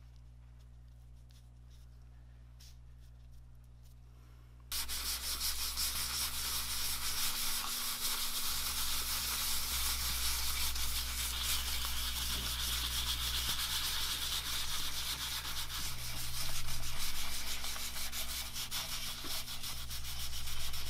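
Sandpaper rubbed back and forth by hand over hardened metal glaze filler on the primed turret casting. It is a steady scratching that starts suddenly about five seconds in, after a quiet stretch.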